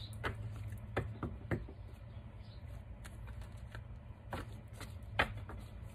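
Tarot cards being handled and laid down on a table: a few scattered soft taps and flicks, several in the first second and a half and a few more near the end, over a steady low hum.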